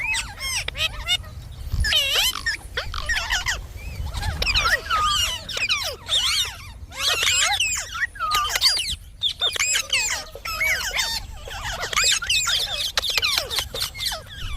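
Indian ringneck parrot chattering in rapid, high-pitched squeaky chirps and whistles, in quick runs broken by short pauses.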